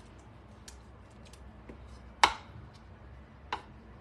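A few light clicks and one sharper knock about two seconds in: a wooden spoon tapping against a metal baking pan while spreading oat batter.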